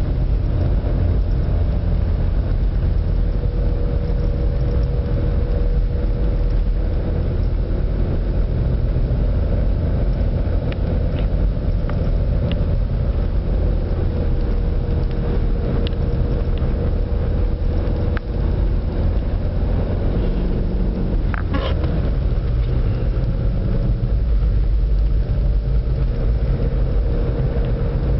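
Car driving on a snow-covered road, heard from inside the cabin: a steady low rumble of tyres and engine with a faint engine hum, broken by a few small knocks and a short squeak about three quarters of the way through.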